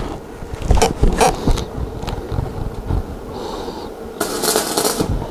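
Manual metal arc (covered stick electrode) welding on a steel plate test piece: the electrode strikes with sharp clicks about a second in, then the arc crackles and sizzles in irregular bursts, loudest a little before the end.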